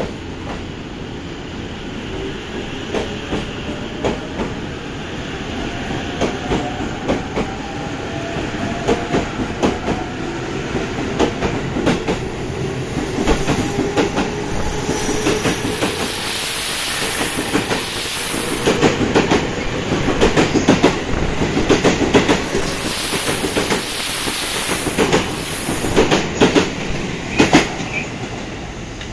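E257-series electric limited express accelerating away from a station: its traction motors whine and rise in pitch, and the wheels click over rail joints in quickening, grouped beats that grow louder as the cars run over the points. Two stretches of high squeal come in the second half.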